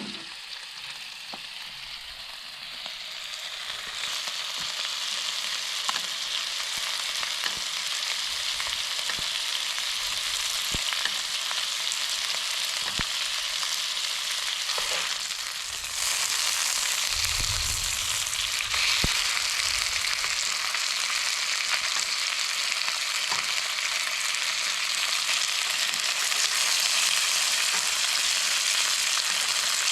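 Trout frying in hot oil in a covered pan: a steady sizzle with scattered small pops and crackles. It grows louder over the first few seconds and again about halfway through.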